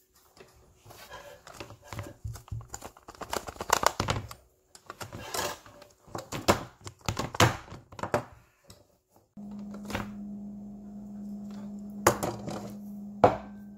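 Metal springform cake pan being worked open with an oven mitt: a string of clicks, knocks and scrapes as the ring and latch are handled. About two-thirds of the way in a steady low hum starts, with two sharp knocks on the counter near the end.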